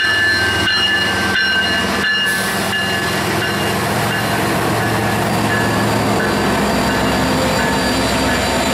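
Diesel freight locomotives passing at close range: a CSX unit followed by Union Pacific units, engines running with a steady low rumble and wheels rolling on the rail. A high-pitched whine is heard in the first couple of seconds and fades as the lead unit goes by.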